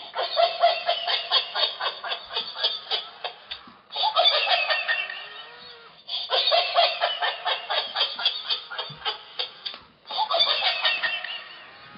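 ROFL tiger plush toy playing its recorded laughter as it rolls on the floor: fast, pulsing laughter in four bouts with brief breaks between them.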